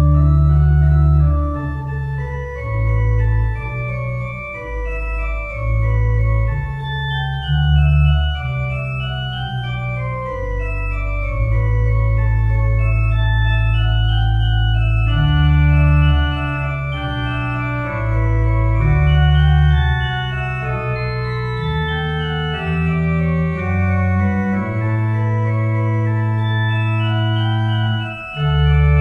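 Organ music: slow, held chords over a deep sustained bass line, the harmony changing every second or two.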